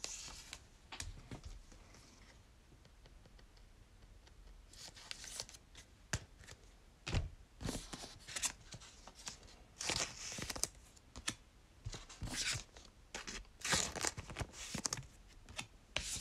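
Trading card packaging being torn open and handled: irregular tearing, crinkling and light clicks, busier from about five seconds in.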